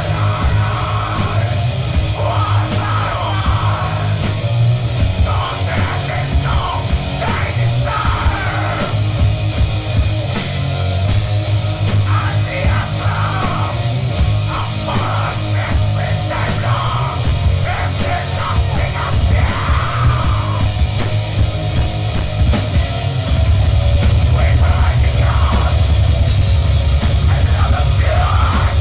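Live black metal band playing: electric guitars, fast drumming and screamed vocals, heard from within the crowd. About 23 seconds in, the low end grows heavier and louder.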